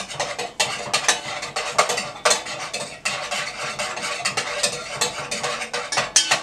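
Tomato pizza sauce being stirred with a spoon: a quick, irregular run of clinks and scrapes against the side of the dish.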